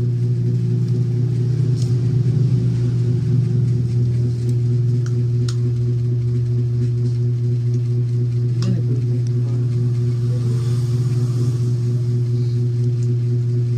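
A steady low electrical hum with a few faint clicks over it.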